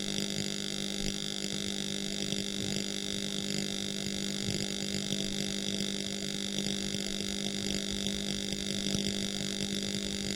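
Electric welding arc running steadily: an even electrical hum with a fine crackle of sparks.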